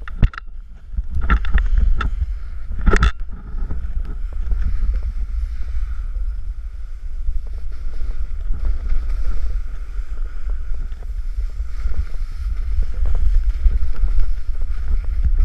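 Wind buffeting an action camera's microphone as a snowboard slides and carves through powder snow: a steady, rough rumble, with a few sharp knocks in the first three seconds.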